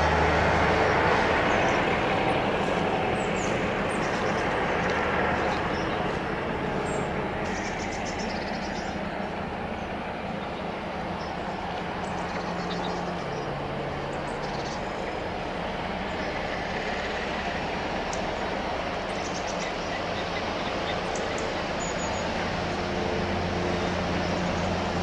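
Diesel locomotive working under power as it approaches with a passenger train: a steady engine drone with a low hum, which firms up near the end as it draws closer.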